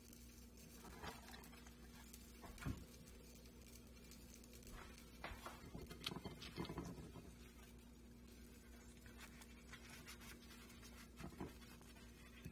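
Faint handling sounds: soft taps, clicks and rustles as fingers work a flour tortilla burrito on a glass plate, busiest around the middle, over a low steady hum.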